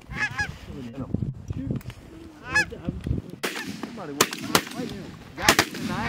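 Geese honking in short calls, then several shotgun shots in quick succession in the second half, the loudest near the end.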